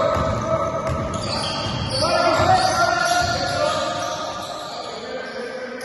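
Basketball bouncing repeatedly on a court floor, about two bounces a second, with voices in the hall.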